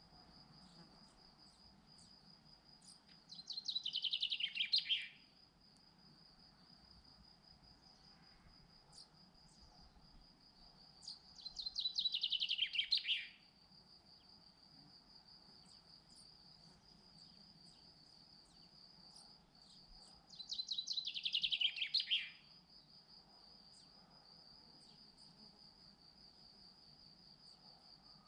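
A songbird sings three times. Each song is about two seconds of quick notes that fall in pitch, and the songs come roughly every eight to nine seconds. Under them runs a steady, high cricket trill.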